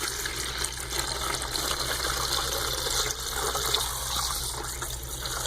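Liquid poured steadily from a container into a bucket, splashing and filling around the submerged pump.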